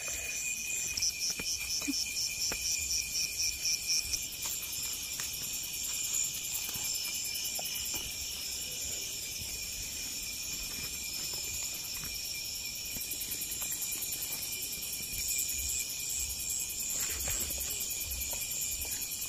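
Night chorus of crickets and other insects: steady high-pitched trilling, with a faster pulsing chirp over a few seconds about a second in. Faint rustles of grass being parted by hand.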